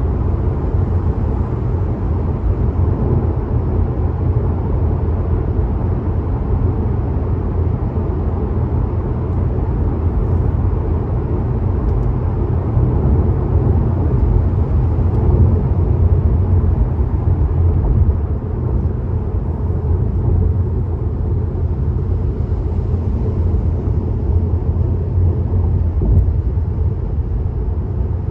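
Car driving at highway speed: a steady, low rumble of tyre and road noise.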